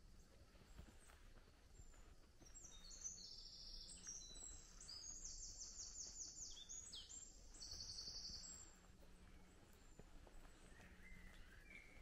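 A songbird singing faintly: a high-pitched song of fast trills and rapid note series lasting about six seconds, starting a couple of seconds in, over quiet woodland background.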